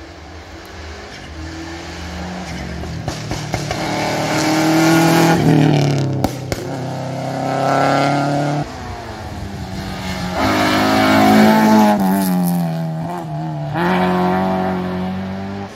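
Rally cars racing on a tarmac sprint stage, engines revved hard. The engine pitch climbs and then drops sharply several times, as at gear changes or lifts for the corner, and the sound peaks twice as cars pass, about five and eleven seconds in.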